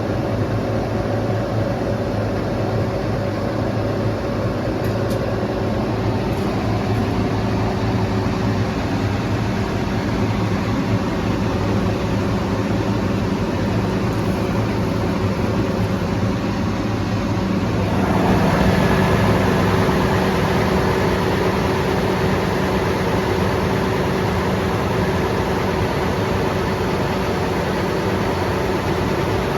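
Engine of a cable-pulling rig running steadily while power cable is pulled through an underground duct. About two-thirds of the way through it gets louder and its pitch shifts up.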